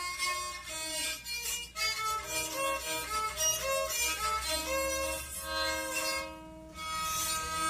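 Rabeca (Brazilian folk fiddle) being bowed, playing a quick melody of short notes. The playing dips briefly about six seconds in, then goes on into a long held note near the end.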